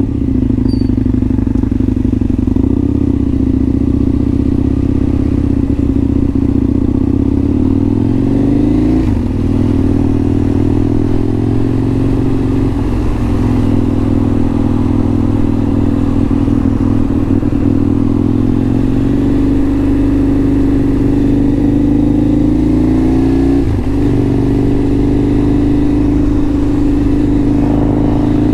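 Motorcycle engine under way, recorded loud and close on a helmet-mounted GoPro microphone. It runs steadily, and the revs climb and drop back at gear changes about nine, thirteen and twenty-four seconds in, and again near the end.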